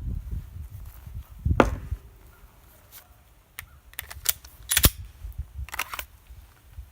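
Shots from a Glock 34 9mm pistol: a handful of sharp reports, unevenly spaced about a second apart.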